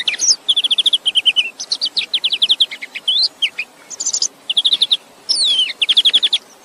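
Songbirds singing loudly: quick runs of short, high chirps follow one another without pause, broken by a few notes that sweep down in pitch and one that rises.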